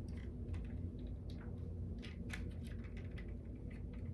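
Irregular small clicks and taps of a hard plastic M.A.S.K. Thunderhawk toy car being handled, its hinged doors and wings worked back and forth, over a steady low hum.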